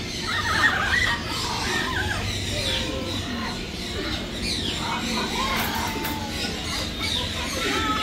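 Many caged birds calling over one another: short overlapping chirps, whistles and squeals, with no single call standing out.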